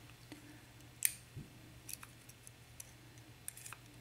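A few light, sharp metallic clicks and ticks of small lock-cylinder pins and a tool being handled, the clearest about a second in.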